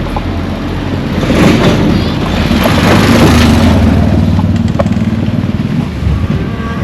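A motor vehicle passing close by: its engine and road noise swell to a peak about two to three seconds in, then ease off.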